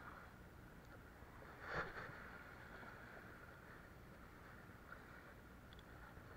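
Near silence: a faint steady outdoor hiss, broken once about two seconds in by a brief soft swish.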